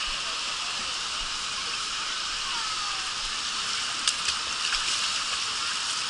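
Steady rushing hiss of shallow water flowing fast down a concrete water-ride channel around riders in inner tubes, with faint distant voices. A couple of brief sharp splashes come about four seconds in.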